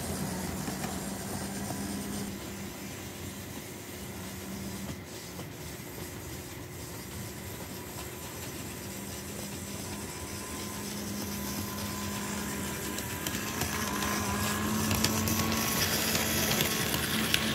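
Model train running on sectional track: a steady electric motor hum with the wheels rolling and rattling over the rails, dipping a little and then growing louder near the end as the cars come close past.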